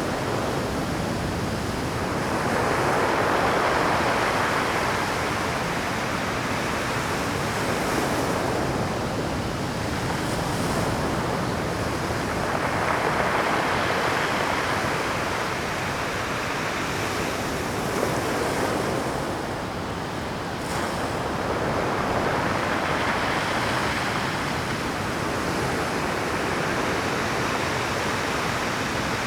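Pacific surf breaking on a rocky shore at high tide: a continuous wash of rough waves, swelling with a larger breaker about every ten seconds.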